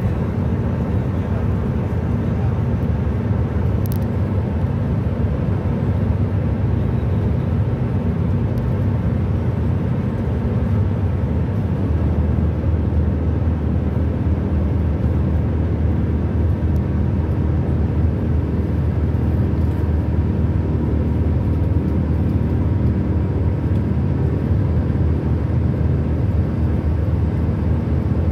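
Steady road and engine noise from a car driving at cruising speed, heard from inside the car: a low, even drone with a haze of tyre noise above it. A brief click sounds about four seconds in.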